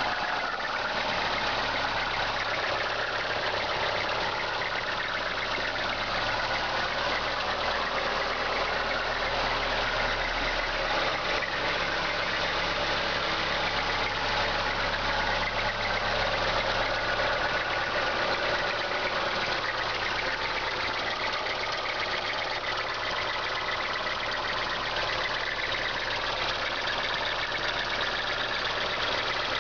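Mitsubishi Colt Plus engine idling cold, with an abnormal noise from its accessory drive belt running steadily over the engine sound. The belt noise comes at every cold start and has not gone away after several belt adjustments.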